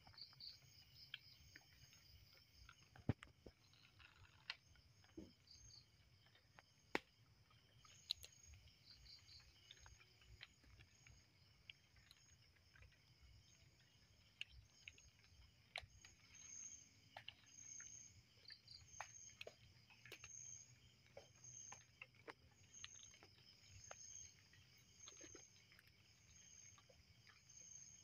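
Faint night chorus of crickets and other insects: steady high trilling, joined about halfway through by a high chirp that repeats a little faster than once a second. Scattered small clicks and rustles sound here and there.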